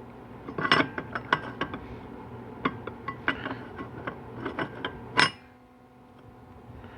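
Clutch plates and pressure plate of a GM 4L80E transmission's direct clutch pack clinking and clicking as they are handled and seated in the housing: a run of light, irregular metal clicks, with one sharper clink about five seconds in.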